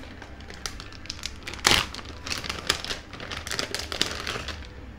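Clear plastic packaging bag crinkling as it is opened and handled to take out a USB cable: a run of irregular crackles, with one louder crackle about one and a half seconds in.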